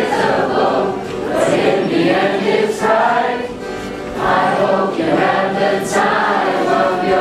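Music: a group of voices singing together like a choir.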